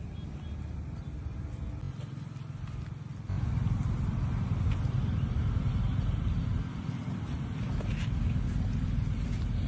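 A low, continuous rumbling noise that jumps louder about three seconds in.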